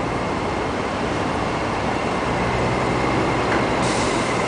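Steady low rumble of idling tour coaches' diesel engines with traffic noise; a steady high hiss joins near the end.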